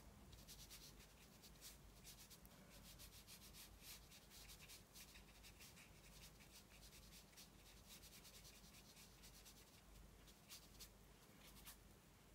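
Faint, irregular light taps and rubbing of a round watercolour brush dabbing paint onto textured watercolour paper.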